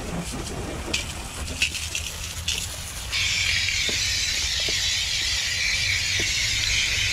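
A few sharp clicks, then about three seconds in a garden hose spray nozzle opens with a sudden, steady hiss of water spraying onto a car wheel and wheel well.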